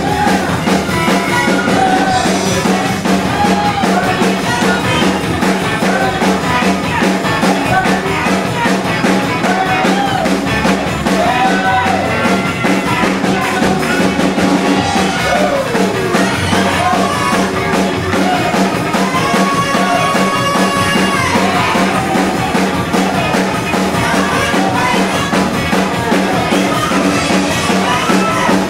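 Live gospel praise-break music: a fast, driving drum-kit beat with melodic lines and singing over it, played at a steady loud level.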